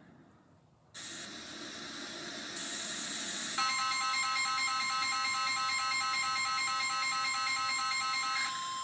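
Static hiss starts about a second in. From about three and a half seconds, synthesized electronic alert tones pulse in a regular repeating pattern over a steady tone, the attention signal that leads into an emergency alert broadcast.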